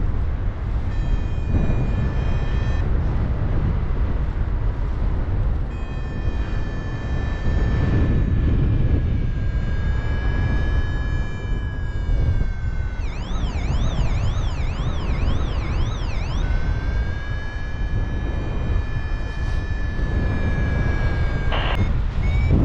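Wind rushing hard over the microphone in flight, with a steady whistle-like electronic tone over it that holds, glides slowly and, from about 13 seconds in, warbles rapidly up and down for a few seconds before settling again.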